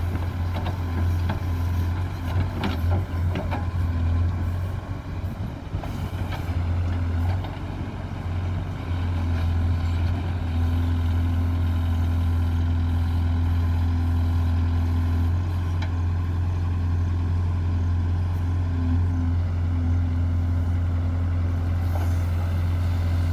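JCB 3DX backhoe loader's diesel engine running under hydraulic load as the backhoe digs and swings. In the first several seconds there are short knocks and rattles as the bucket empties earth into the tractor trolley. From about eight seconds in the engine runs steadier and a little louder.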